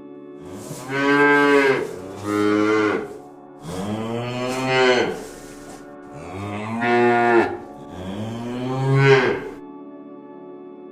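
Cow mooing: five long, low calls in a row, each rising and falling in pitch, with short pauses between them.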